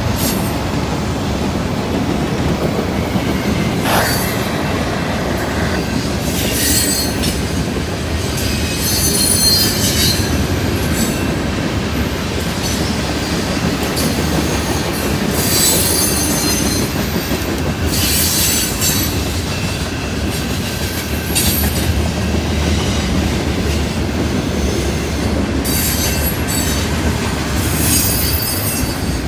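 Canadian Pacific freight train rolling past with a steady rumble, and high-pitched wheel squeal flaring up several times.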